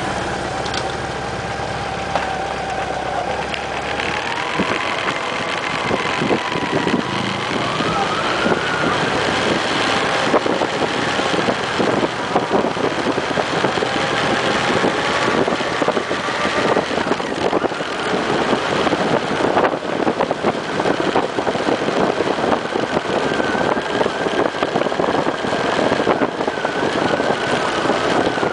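Motorcycle engine running under way, its pitch climbing over the first several seconds as the bike speeds up and then holding steady. Wind buffets the microphone, growing heavier as speed builds.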